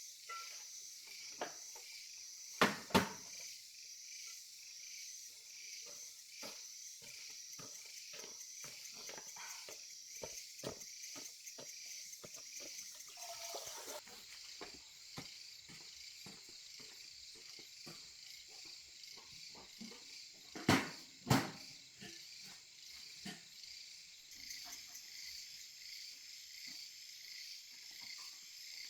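Steady, pulsing chorus of insects, with scattered light clicks and two pairs of sharp knocks, one about three seconds in and one about two-thirds of the way through.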